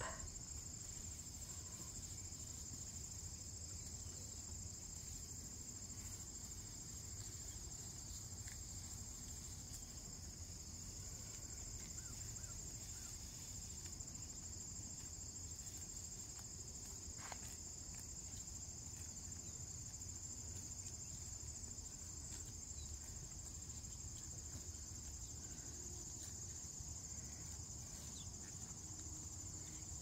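Steady, high-pitched chorus of crickets and other insects, with a faint low rumble underneath.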